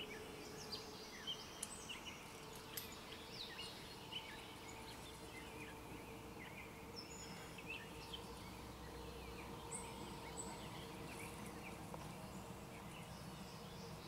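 Birds chirping in many short, scattered calls over a faint steady hum.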